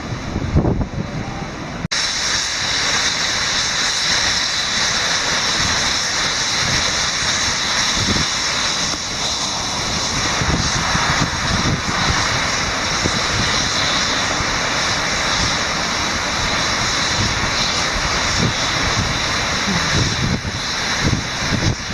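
Waterfall on the Rideau River (Rideau Falls) pouring with a steady loud rush. It starts abruptly about two seconds in, with wind gusting on the microphone.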